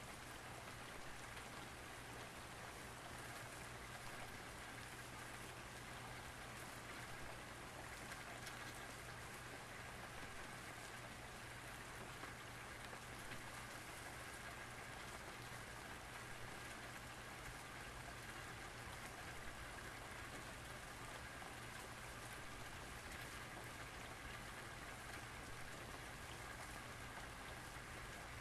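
Faint, steady patter of light rain, with a low steady hum underneath.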